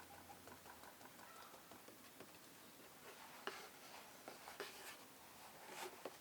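Near silence with faint, scattered small clicks and taps, a few sharper ones in the second half.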